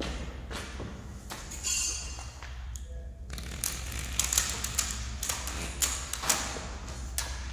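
Scattered knocks, taps and scrapes of a heavy four-core armoured power cable being handled and laid out by hand on a concrete floor, with a brief scrape and ring about two seconds in. A steady low hum runs underneath.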